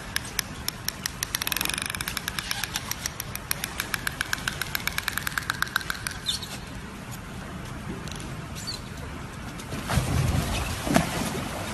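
Dolphin vocalizing in air from its blowhole: a rapid, buzzing train of creaking clicks with high squeaky tones for about six seconds, then a short rising chirp. Near the end a louder low splash as a dolphin moves in the pool.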